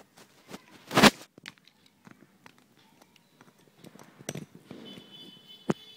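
Handling noise as a USB pen drive is pushed into an OTG adapter cable: one sharp knock about a second in, then a few lighter clicks and taps.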